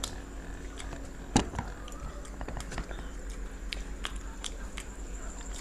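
Chewing and biting into cheesy chicken pizza: a run of small, irregular mouth clicks and squishes, with one sharper, louder click or knock about a second and a half in.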